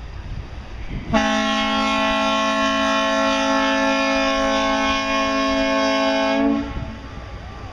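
A single long, steady horn blast, several pitches sounding together as a chord, starting about a second in and lasting about five seconds before cutting off.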